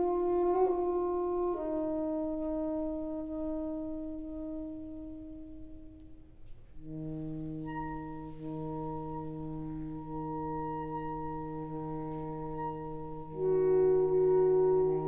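Saxophone quartet of soprano, alto, tenor and baritone saxophones playing slow, sustained chords. A held chord fades away, then about seven seconds in a new chord enters over a low baritone note, and near the end the upper voices come in louder.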